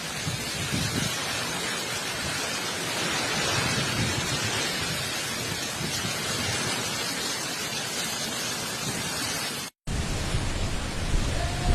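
Cyclone wind and rain as a steady, even hiss. The sound drops out completely for a moment near the end.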